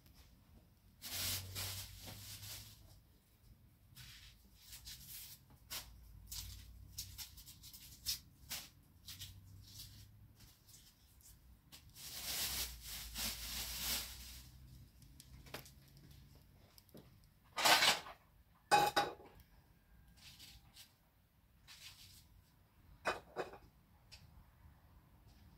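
Kitchenware being handled: scattered clinks and clicks with stretches of scraping or rustling, and a few sharper, louder knocks in the last third.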